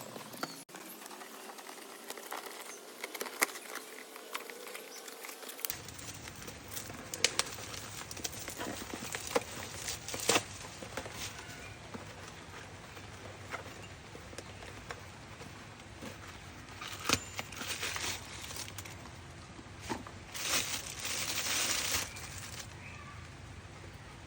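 Handling noise: scattered clicks and taps, with a few short bursts of rustling in the second half.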